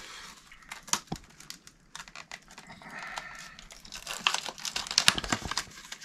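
Plastic packaging crinkling as a plumbing fitting is handled and unwrapped, with scattered small clicks and taps of parts, busiest about four seconds in.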